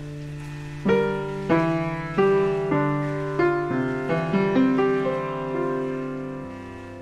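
Slow, gentle piano music: a held low note, then a melody of single struck notes that start about a second in, each fading away, thinning out near the end.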